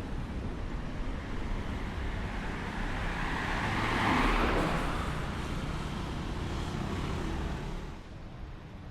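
A motor vehicle passing on the street, its tyre and engine noise swelling to a peak about halfway through and then fading away, over low traffic rumble.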